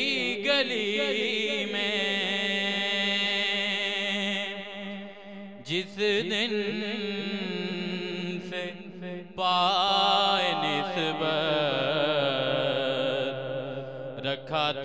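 Solo male voice singing a naat, holding long ornamented notes whose pitch wavers, over a steady low drone. The phrases break briefly about five and nine and a half seconds in.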